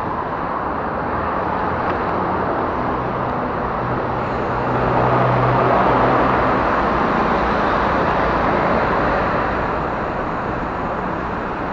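Steady rushing of air and road noise from a moving bicycle, with city motor traffic around it. The traffic noise swells in the middle, with a low hum from a passing vehicle about a third of the way in.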